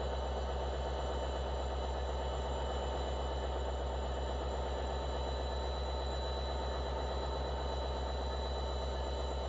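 Diesel locomotive engine running steadily at idle: an even, unchanging drone with a few steady high-pitched tones over it and no horn.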